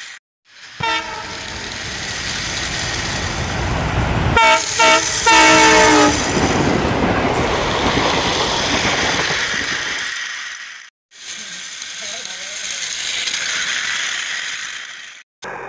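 Centy Toys battery-operated passenger train running along its plastic track with a steady whirring rattle, sounding its toy horn briefly about a second in and then in a few louder toots around four to six seconds in.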